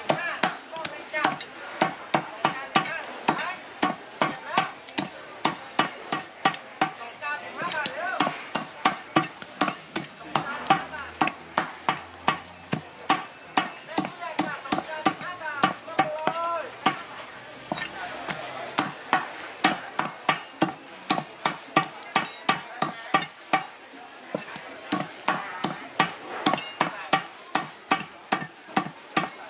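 A heavy cleaver chopping a whole raw chicken through bone on a thick round wooden chopping block. The chops come fast and even, about two to three a second, with a few brief pauses.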